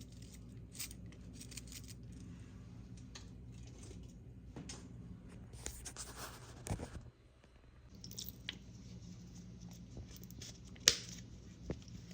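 Small handling noises: scattered soft taps and rustles, a longer rustle about halfway through and one sharp click near the end, over a steady low hum.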